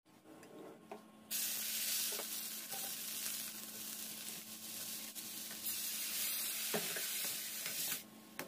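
Vegetables and chicken sizzling loudly as they are stir-fried in a wok, with a few knocks of the spatula against the pan. The sizzle starts suddenly about a second in and drops away near the end.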